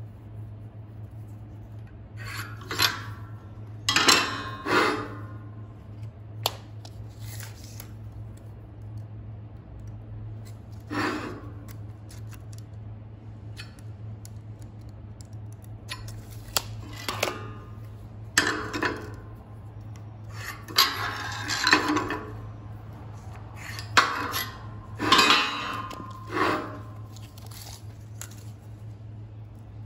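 Hand tools handled on a steel plate and bench while marking out: a steel square and tape measure clinking and sliding on the steel, and chalk scraping lines across the plate, in several short bursts. A steady low hum runs underneath.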